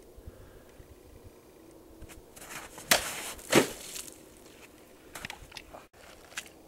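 A sword cutting a target: two sharp hits about two-thirds of a second apart, followed by a few faint clicks.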